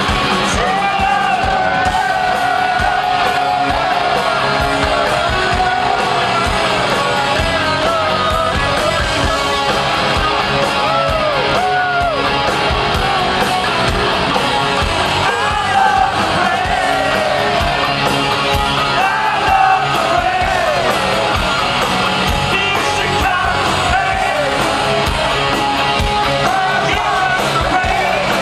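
Live rock band playing a song at full volume: a male lead singer's voice over electric guitars, bass and drums, heard through the stage sound system.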